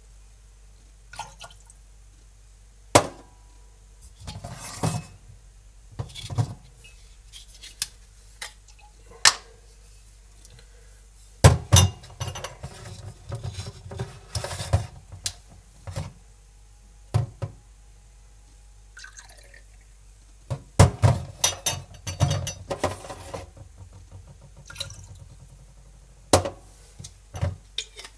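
Glass bottles and a shot glass knocked down on a stainless-steel drainboard, between spells of clear spirit being poured and splashed into glasses. The knocks are sharp and come at irregular intervals; the loudest are about three seconds in, at about eleven and a half seconds, and at about twenty-one seconds.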